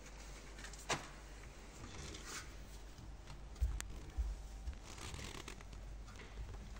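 Faint scraping and rustling of a hand working in loose soil under an opened floor, with a sharp click about a second in and a few low bumps from the phone being moved around.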